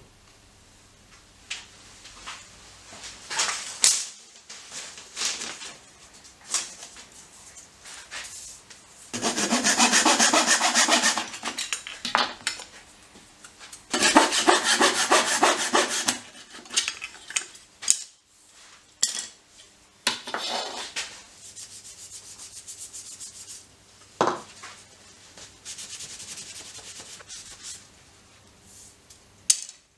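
Small hand saw cutting thin wooden strips in two spells of quick strokes, with short wooden knocks and clicks as the strips are handled in between. Near the end, sandpaper rubbing along a strip with a softer, steady rasp.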